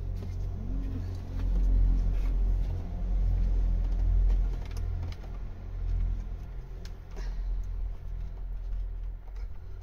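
A low rumble that swells and fades, with a few faint clicks from hands working at the car door's exposed wiring and connectors.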